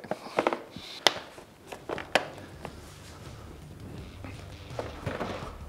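Plastic front body panels of a Yamaha YFZ450R ATV being handled and pressed back into place: scattered clicks and taps of plastic on plastic, with a faint steady low hum in the second half.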